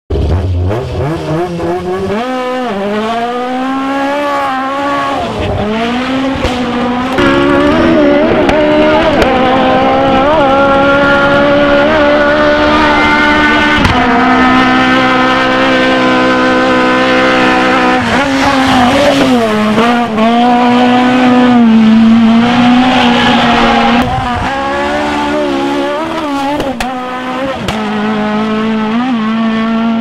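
Fiat 131 rally car's engine under hard throttle, its revs climbing and dropping again and again, held nearly steady for a few seconds in the middle.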